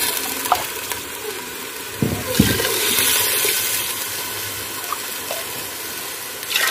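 Lentils (dal) sizzling and being stirred with a wooden spoon in a hot clay handi, just after water has been added to the ghee-fried lentils. About two seconds in there is a low knock, followed by a louder hiss for about a second.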